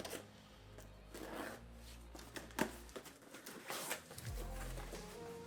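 A small cardboard box being opened and its contents handled: scattered rustles and scrapes of cardboard and paper, with a sharp click a little past halfway.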